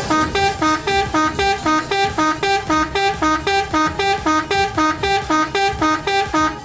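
Telolet multi-tone horn of an odong-odong tourist train playing a fast repeating two-note figure, about three toots a second.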